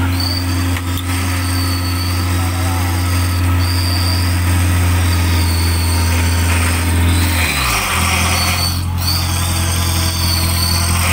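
Off-road 4x4 being winched out of a mud hole: its engine running under the steady whine of the electric front winch, a loud continuous drone. About three-quarters of the way through the low hum slides down in pitch and settles at a new steady level.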